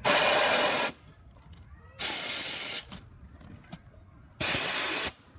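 Compressed air blasting out of the manual drain valve at the bottom of a diesel locomotive's brake air tank as its chain is pulled. Three loud bursts of escaping air, each just under a second, about two seconds apart, purging water and oil from the tank.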